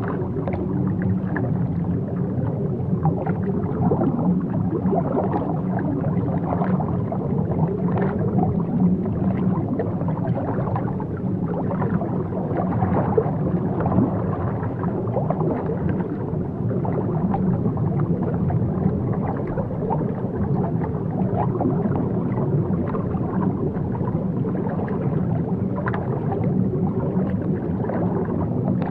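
Underwater ambience: a steady, muffled low rumble of water with faint bubbling and gurgling scattered through it.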